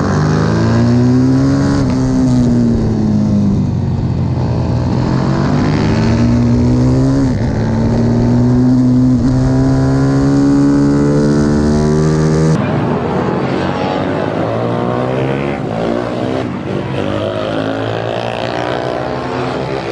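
Pit bike engines racing, heard on board at first: the engine revs up and shifts up through the gears, its pitch climbing and then dropping back at each change, several times over. About two-thirds of the way through, the sound switches abruptly to several pit bikes heard at once from the trackside, their engines overlapping as they run through a corner.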